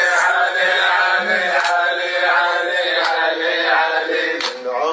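Male voice chanting an Arabic devotional chant to Imam Ali, repeating 'Ali, Ali, Ali' in long, held, wavering notes.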